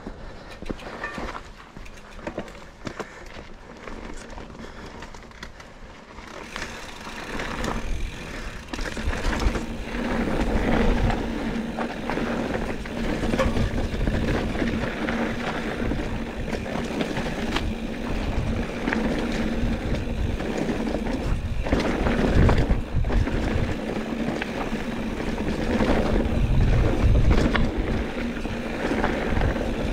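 Mountain bike riding down a dirt singletrack: tyre noise on dirt with a low rumble and scattered knocks from the bike, louder from about six seconds in.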